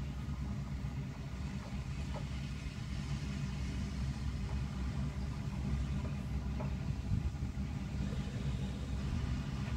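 Diesel engine of farm machinery running steadily at a constant speed, a low rumble with no change in pitch.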